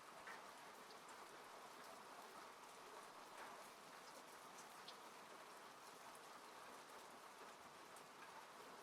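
Steady, faint rain falling on a car, heard from inside the car, with scattered ticks of single drops.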